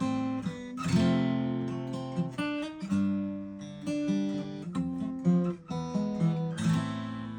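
Taylor 214 DLX acoustic guitar being played: strummed chords about a second in and near the end, with picked single notes ringing out between them.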